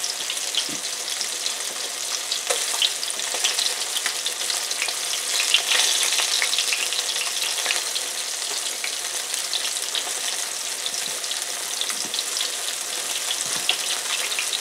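A breaded flounder fillet frying in hot vegetable oil: a steady sizzle with scattered small crackles and pops, briefly a little louder about six seconds in.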